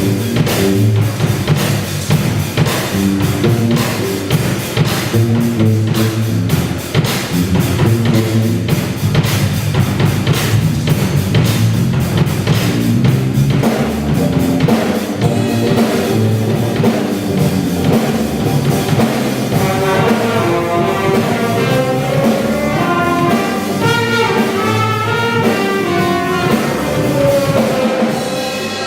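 Live band playing: drum kit, bass, guitar and brass. A steady drum beat drives the first half, and the horn lines come up over the second half.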